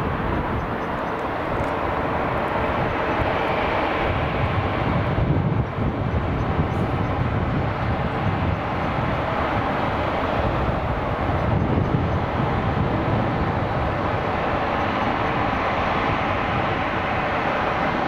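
Airbus A350-1000's Rolls-Royce Trent XWB jet engines running steadily at taxi power as the airliner taxis.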